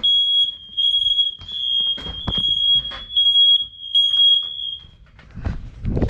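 Smoke alarm set off by aerosol test smoke, sounding a loud, high-pitched beep in repeated pulses with short breaks; it cuts off about five seconds in. A few knocks sound near the middle.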